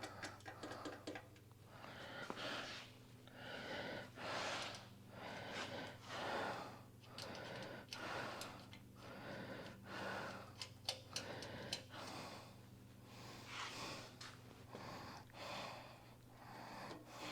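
Oil pan nuts being run down onto their studs with a hand ratchet: repeated short strokes about once a second, with runs of quick clicking near the start and again around ten seconds in.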